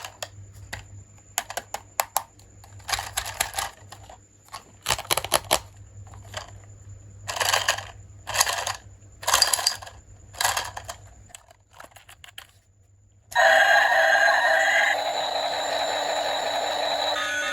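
Clicks, taps and rustles of plastic toy pieces and packaging being handled, with four short crinkling bursts about a second apart. About 13 seconds in, a loud electronic ringing tone from the toy starts and runs on.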